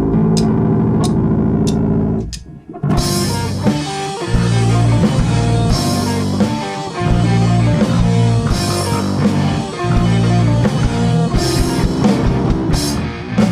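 Live rock band: a held guitar chord with four evenly spaced sharp clicks, a brief break, then the full band comes in about three seconds in with electric guitar riff, bass and drum kit.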